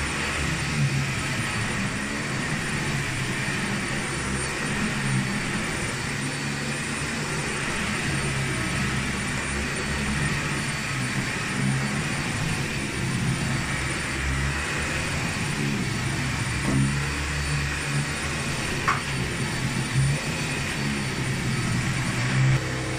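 Dyson Ball Animal 2 upright vacuum cleaner running on carpet, a steady motor whine with the brushroll spinning. Its low hum swells and fades as the machine is pushed back and forth.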